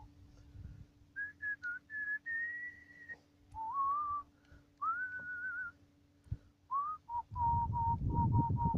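A person whistling a tune in short phrases of sliding and held notes with pauses between. Near the end a louder low noise comes in under the whistling, which carries on as a run of short repeated notes.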